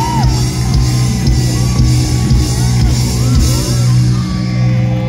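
Live rock band playing loudly through a concert PA, with a low note held steady throughout.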